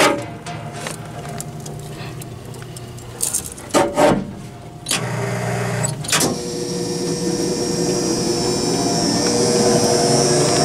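Sharp clicks from the siren's Warning Signal Control panel as its Test button is pressed, then the Federal Signal Thunderbolt 1003 siren's motor and blower start and run with a steady mechanical hum that grows louder over the last few seconds.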